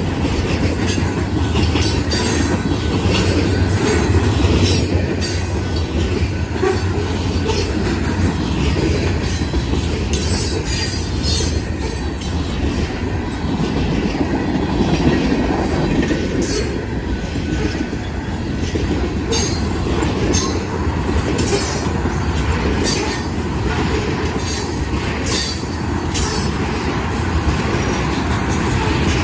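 Freight train of tank cars and covered hoppers rolling past: a steady rumble of wheels on the rails with irregular clicks and clacks throughout.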